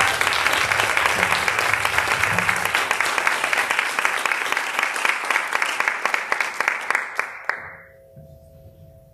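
Audience applauding in an auditorium, dense clapping that dies away about seven and a half seconds in, leaving a faint steady hum.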